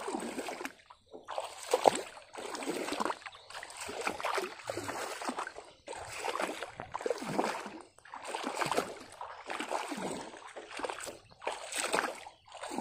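Bare feet wading through shallow floodwater, a splash and slosh with each step, about one step a second.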